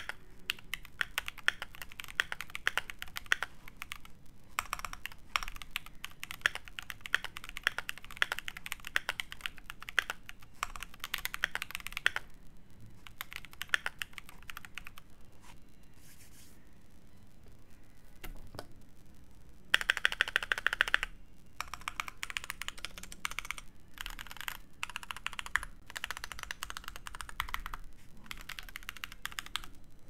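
Keychron Q2 mechanical keyboard with steel plate, lubed SP-Star Magic Girl tactile switches and MT3 keycaps being typed on: steady runs of key clacks with short pauses. A quiet gap of a few seconds comes a little past the middle, then a short, louder flurry of rapid keystrokes before the typing goes on.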